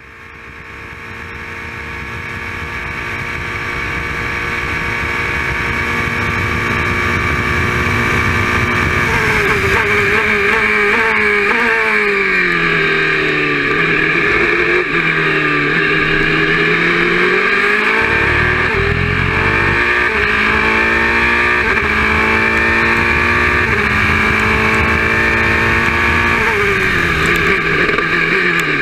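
Onboard sound of an Oreca 03R LMP2 prototype's Nissan V8 at racing speed, fading in over the first few seconds. The engine note holds steady at first, then falls and climbs through a series of gear changes, with a stepped rise and a drop in pitch at each upshift.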